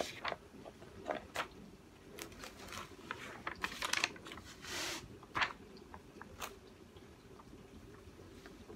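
Large paper sheets rustling and crinkling as they are lifted, folded back and smoothed by hand over a diamond painting canvas, with irregular crackles and one longer rustle about five seconds in; the handling dies down after about six and a half seconds.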